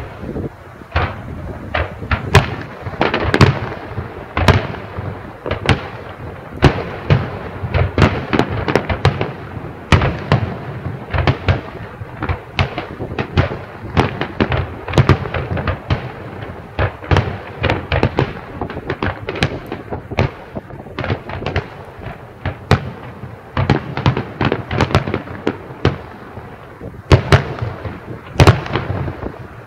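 Fireworks display going off in a rapid, continuous barrage: many sharp bangs and crackles a second, with louder booms scattered through.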